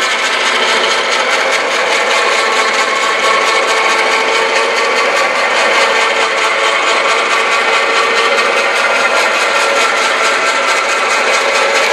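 Electric winch running under load, winding in its cable to haul a heavy welded steel lift frame upright: a loud, steady motor and gear whine that cuts off abruptly at the very end.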